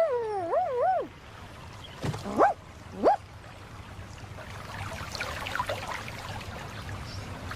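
Cartoon dachshund whining with a wavering pitch, then giving two short rising yelps, followed by water running and splashing from a burst leak.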